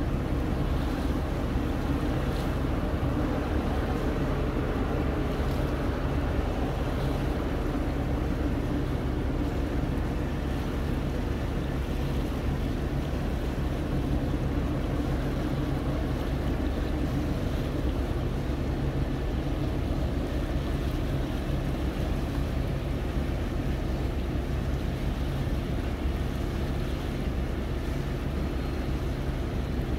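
A steady low engine drone with wind and water noise, heard from a boat on the water.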